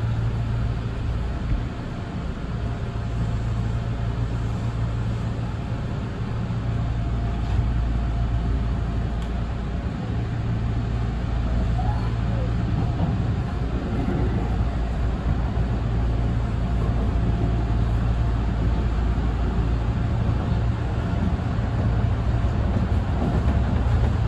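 Electric express train running along the track, heard from just behind the driver's cab: a steady low rumble of wheels on rails with a constant hum underneath.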